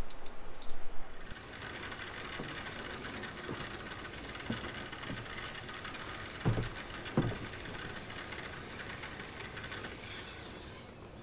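Tap water running into a utility sink while an aluminium motorcycle engine case is scrubbed in soapy water, with two knocks of the case against the sink about six and seven seconds in. The flow changes near the end as the tap is adjusted, after a second of clattering at the start.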